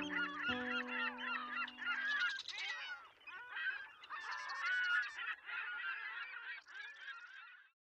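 A flock of geese honking, many calls overlapping, over a held music chord that ends a couple of seconds in. The calls cut off suddenly near the end.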